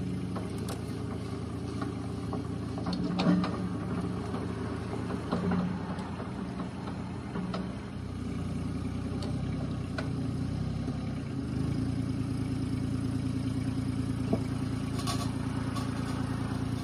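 CAT 302.7D mini excavator's diesel engine running steadily while the machine tracks along and slews its upper structure round, with the engine note picking up slightly about two-thirds of the way through and a few light clanks.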